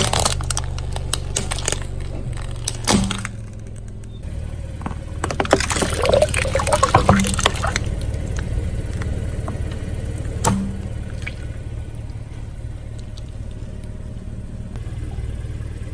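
Car engine idling while a tyre rolls over and crushes a plastic toy tank, with a run of cracking and snapping in the first few seconds. Later there is more crackling, a single sharp crack, and liquid splashing and dripping as a liquid-filled balloon is flattened.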